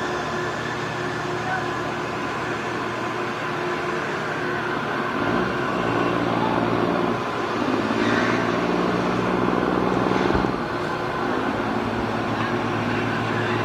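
An engine running with a steady hum. From about five seconds in it grows louder and deeper, then drops back suddenly about ten and a half seconds in.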